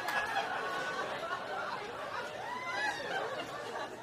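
A group of people laughing and chuckling together, gradually dying down.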